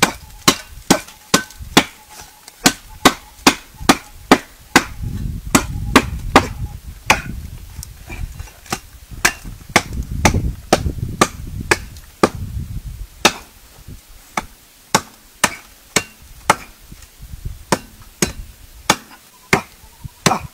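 A blade chopping into a tree trunk, sharp strokes about two a second with a few short pauses.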